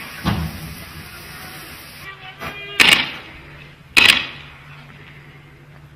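Shots fired in street clashes: two sharp, loud bangs about a second apart, each with a short echo, after a dull thump just after the start.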